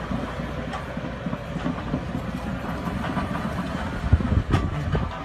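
Heavy machinery rumbling, with irregular clanking and rattling and a few louder knocks about four seconds in.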